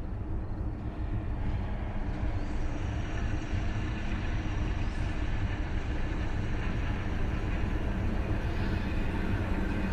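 Steady low rumble on the horror short's soundtrack, with faint high tones coming in after a couple of seconds.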